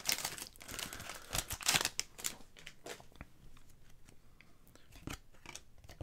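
Foil wrapper of an Upper Deck hockey card pack crinkling as it is torn open, then a stack of trading cards being slid and flipped through, with a few soft card-on-card flicks.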